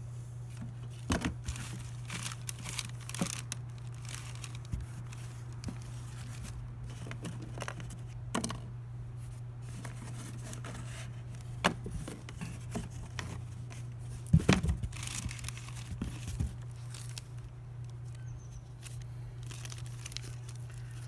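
Parts and packaging being handled: scattered clicks, taps and crinkling rustles, with a brief burst of knocks about fourteen seconds in, over a steady low hum.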